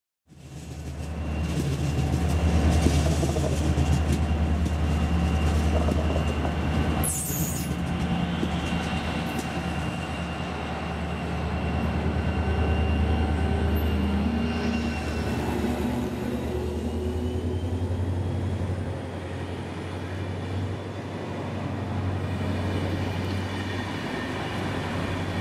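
A DSB class ME diesel-electric locomotive's two-stroke EMD V16 engine running with a strong, steady low drone as the train passes with its double-deck coaches. A brief high wheel squeal comes about seven seconds in.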